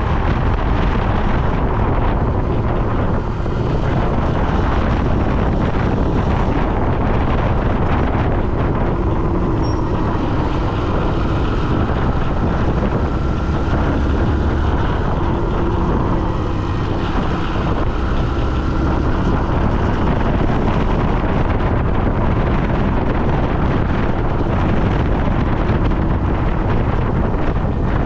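Steady, loud wind noise buffeting the microphone, as on a camera carried by a moving rider, with a faint steady hum through the middle.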